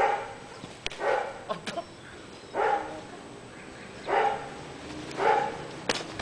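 A dog barking five times, a second or so apart, with a few sharp clicks in between.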